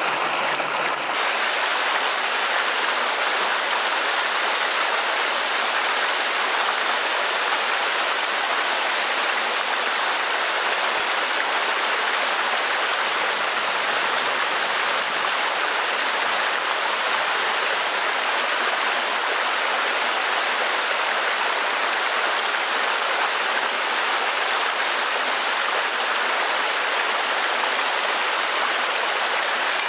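Small cascade on a forest stream, water spilling over a low rock ledge into a shallow pool: a steady rushing splash that changes slightly about a second in.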